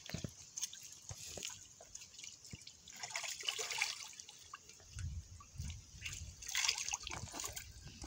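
Water dripping and trickling from cupped hands back into a concrete water trough: scattered single drips, with short splashy pours about three seconds in and again later.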